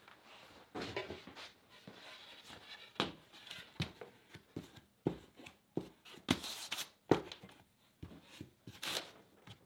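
Intermittent handling noises: light knocks, clicks and rustles as hands work a twisted rope clamp around a shield's rim.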